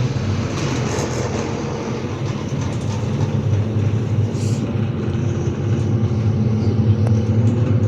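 Cabin noise inside a MAZ-215 articulated city bus on the move: a steady low engine drone with road and body noise, growing a little louder in the second half.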